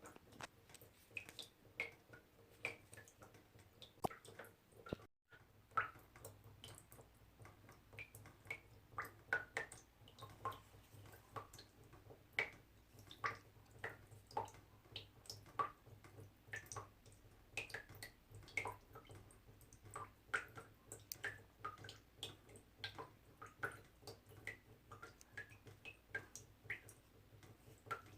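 Small water droplets dripping in an irregular patter, a few drops a second, each a short pitched plink. A brief dropout about five seconds in, over a faint low hum.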